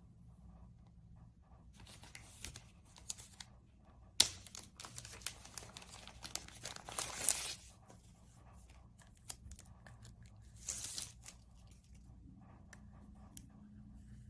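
Thin clear plastic wrapping on a pair of sunglasses crinkling and tearing as it is handled and pulled off, in irregular rustling bursts. A sharp click a few seconds in is the loudest sound, and the crinkling is densest just after it.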